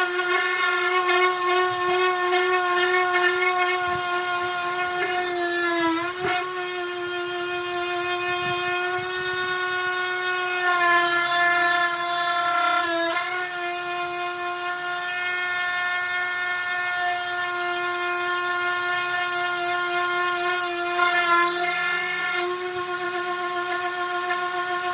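Electric power sander running with a steady whine, its pitch dipping briefly three times as it comes under load.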